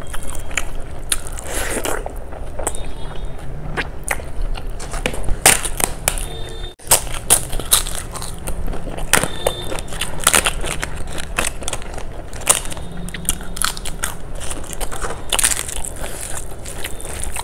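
Close-miked eating with the hands: crisp, crackly crunching bites and chewing, mixed with the wet squish of rice and kadhi being worked by the fingers. There is a brief gap just before the middle.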